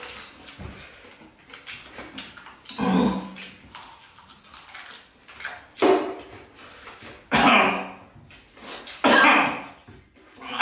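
A man coughing and clearing his throat in four short, loud bursts a second or two apart, while eating.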